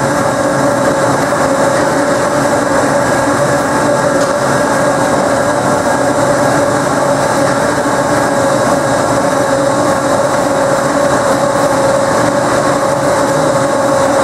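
Ultra T-1500L trommel screen running steadily while screening compost: engine, turning drum and conveyor together, with a steady whine riding over the machine noise.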